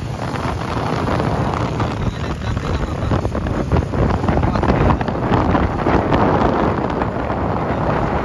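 Wind rushing over the microphone of a moving motorcycle, with the motorcycle's engine and road noise rumbling underneath.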